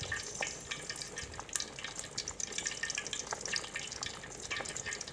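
Chicken pieces in a cream and yogurt sauce bubbling over a high flame, with many small pops as the water cooks off.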